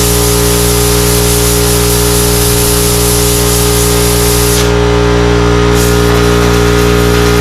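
Steady motor drone with a loud hiss over it; the hiss stops a little past halfway, comes back briefly about a second later, then stays weaker.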